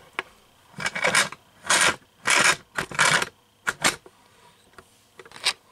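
Handling noise as the camera is lowered and repositioned: a series of short rubbing and scraping sounds. Most come in the first four seconds, with one more near the end.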